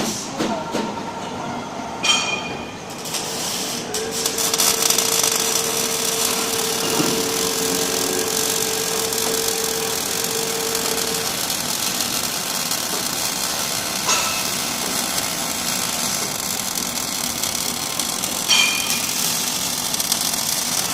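Robotic arc welding: a steady crackling hiss that sets in about four seconds in, with a steady hum for several seconds. Metal clanks ring out about two seconds in and twice more near the end.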